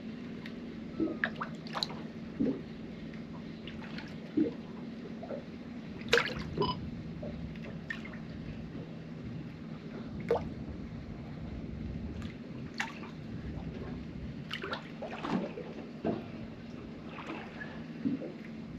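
Sea water lapping and slapping against a small boat's hull in irregular small splashes and drips, over a steady low hum.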